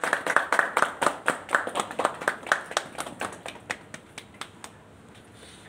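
A few people clapping by hand, loudest at first, then thinning out and dying away about four and a half seconds in.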